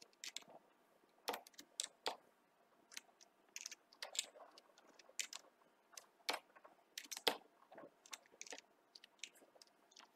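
Quiet typing on a computer keyboard: irregular keystrokes, a few a second, with short pauses between runs.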